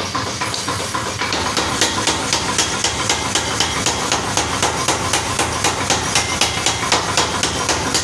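Mechanical power hammer striking a red-hot axe head held in tongs. It gives a fast, even run of blows, about four a second, that settles into a steady rhythm about a second in.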